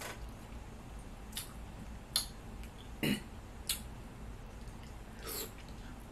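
Eating sounds: about six short, sharp clicks and mouth smacks spread over a few seconds as a metal fork picks at food in a plastic container and food goes to the mouth. A faint steady low hum sits underneath.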